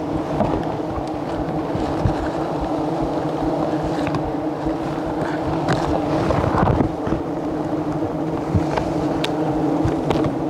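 Dense, steady buzzing of a swarm of wild giant honeybees flying around their open comb, stirred up by smoke from a leaf torch, with scattered faint ticks.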